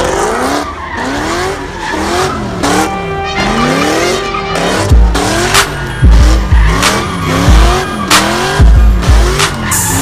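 Car engine revving up and down over and over while its tyres squeal and spin in burnout donuts. A hip-hop track plays along, and its heavy bass beat comes in about halfway through.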